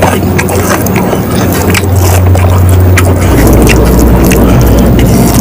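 Fingers mixing rice on a plastic tray, giving small scattered clicks and scrapes, over a loud steady low hum that drops lower in pitch about three seconds in.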